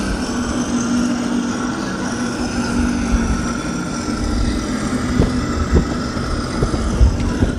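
Radio-controlled model tanks driving over grass, giving a steady engine-like drone, with a few light knocks in the second half.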